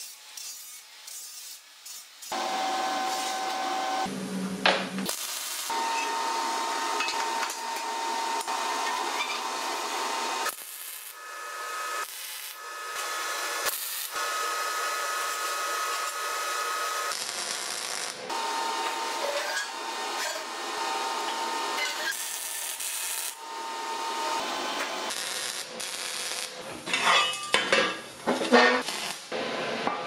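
Metalworking noise in several short takes: a power tool running with a steady whine over rough grinding or rubbing noise on steel. Near the end there is a quick run of sharp metal knocks.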